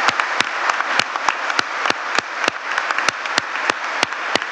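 Church congregation applauding steadily, with individual sharp claps standing out from the dense patter.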